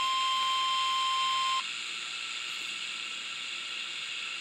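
NOAA Weather Radio warning alarm tone, a steady single-pitched tone near 1050 Hz that signals a warning message is coming; it cuts off suddenly about one and a half seconds in, leaving steady radio hiss.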